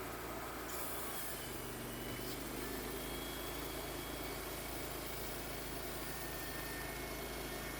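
Wood-Mizer portable bandsaw mill running steadily under engine power, its engine note shifting about a second in.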